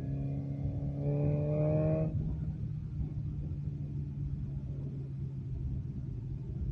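BMW S1000RR inline-four engine running through an M4 aftermarket exhaust. About a second in the revs rise briefly and the note gets louder, then it drops back abruptly, and after that there is a steady lower engine note.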